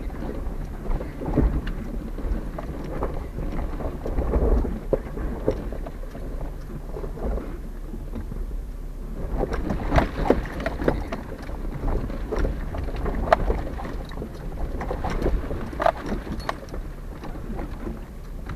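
Jeep crawling slowly down a steep, rocky off-road trail: a steady low rumble with tyres crunching over rocks and many irregular knocks and rattles from the body and suspension.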